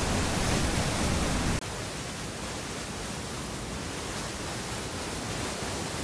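Rhine Falls' white water rushing, heard close up as a steady dense roar. About one and a half seconds in it drops abruptly in level and loses its low rumble, then runs on evenly.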